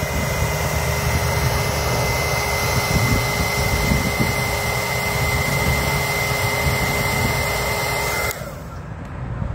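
Small handheld heat gun running: a steady fan rush with a thin high whine, warming a vinyl decal to soften its adhesive. It cuts off suddenly near the end.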